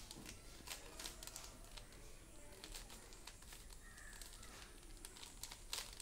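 Rubik's cube layers being turned by hand: faint, irregular plastic clicks.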